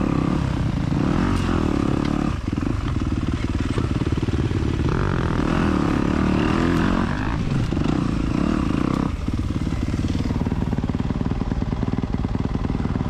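Dirt bike engine running and revving under load, the throttle changing every two seconds or so.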